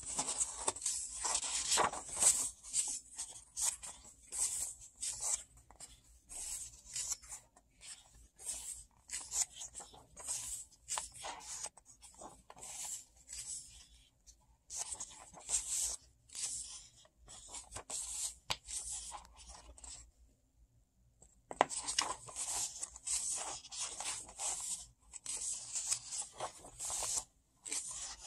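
Pages of a paperback book being turned and handled: a run of short paper rustles and rubs, with a pause of about a second and a half roughly two-thirds of the way through.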